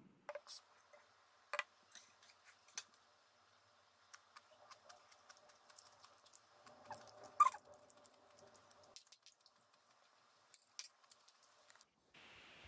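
Scattered small clicks and clinks of tableware: a glass of beer with ice set down on a wooden coaster and metal chopsticks tapping against a bowl, with one louder ringing clink about seven seconds in. A steady hiss begins near the end.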